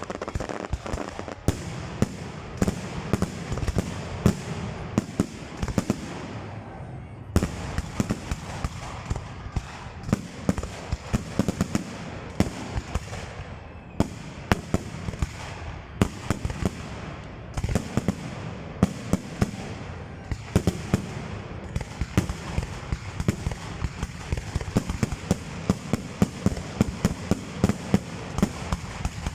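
Fireworks display: shells bursting in a dense run of sharp bangs, several a second, over a steady low rumble, with a short lull about six seconds in before the bangs resume.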